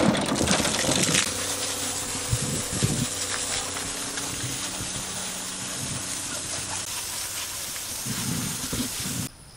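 Garden hose spray nozzle hissing steadily as it rinses pattypan squash on a mesh-screen table. Just at the start, squash tumble out of a plastic tub onto the screen with a few soft knocks. The spray cuts off suddenly near the end.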